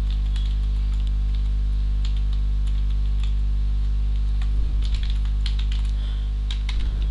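Computer keyboard typing: irregular key clicks while an email address is entered, over a steady low electrical hum.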